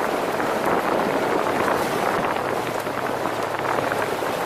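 Steady rushing wind noise on the microphone over the low, even hum of a side-by-side UTV's engine running.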